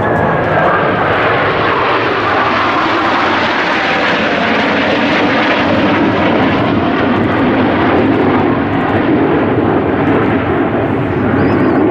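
Blue Angels F/A-18 Hornet jet engines giving a loud, steady roar during a flying display, turning duller from about halfway through.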